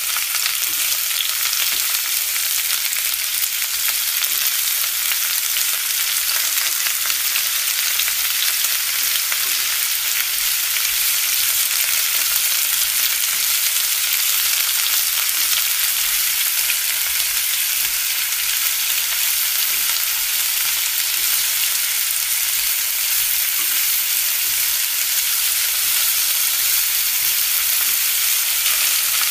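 Vegetable-and-egg batter frying in hot oil in a wok: a steady, hissing sizzle.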